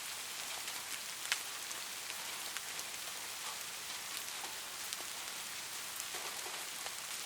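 Steady rain hissing, with separate drops ticking on a surface throughout and one sharper drop about a second in.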